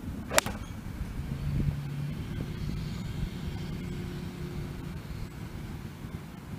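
A golf iron strikes a ball off a hitting mat once, a sharp crack about half a second in. A steady low engine drone runs in the background after it.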